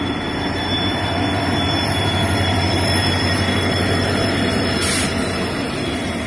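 A locomotive and a rake of milk tank wagons passing close by on the adjacent track. It makes a steady low hum over a continuous rumble of steel wheels on the rails.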